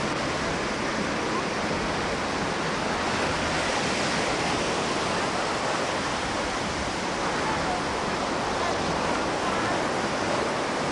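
Steady wash of breaking ocean surf, an even hiss that does not let up.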